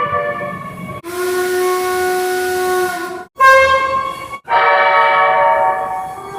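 Seoul Subway Line 2 train horns in several spliced clips: a chord of several steady notes, then about two seconds of a steady whistle-like horn with an air hiss, a short loud blast that cuts off abruptly, and another steady multi-note horn.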